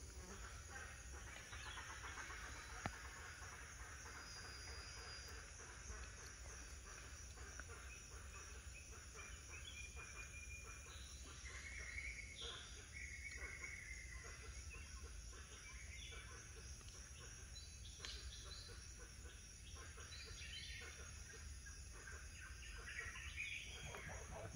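Faint outdoor ambience with scattered short bird chirps and whistles, most of them in the second half, over a low steady rumble.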